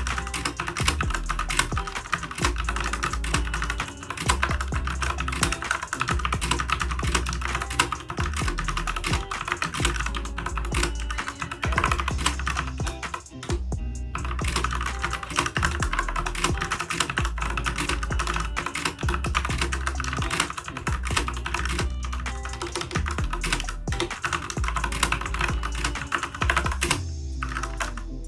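Fast, continuous typing on a mechanical keyboard fitted with Outemu Orange soft-tactile switches: a dense clatter of keystrokes that pauses briefly about halfway and again near the end. Background music with a steady bass line runs underneath.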